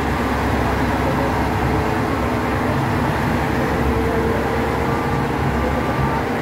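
Heavy multi-axle military bridge-laying truck driving slowly past close by: a steady low engine rumble with a faint whine above it.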